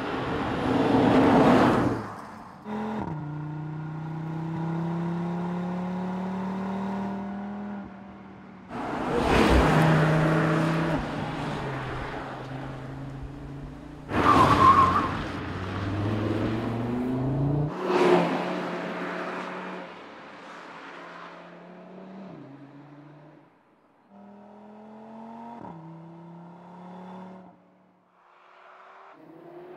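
Audi RS3's 2.5-litre turbocharged five-cylinder engine accelerating hard past several times. Its note climbs through each gear, with quick upshifts that drop the pitch.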